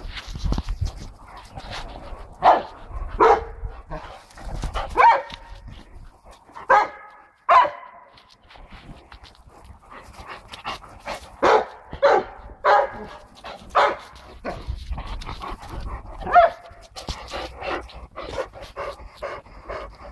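Chow chow puppies barking and yipping at play: about ten sharp, short barks in bunches, with softer yips between them.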